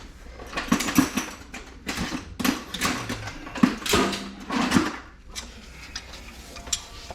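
Hands working in a cramped under-sink cabinet: a series of short clicking, rattling and scraping handling noises in irregular clusters, with brief pauses between them.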